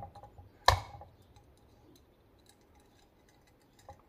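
One sharp click less than a second in, then a few faint small clicks near the end: small parts of an Edelbrock 1406 carburetor being handled during reassembly.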